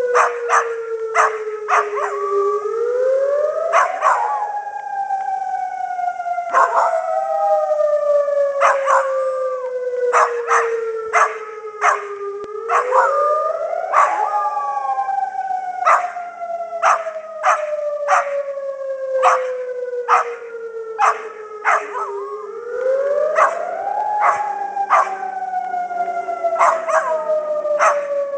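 A Pembroke Welsh Corgi howling along in many short repeated calls to a civil defence siren on its monthly test. The siren wails in long cycles: its pitch rises over about two seconds, then falls slowly over about eight, three times over.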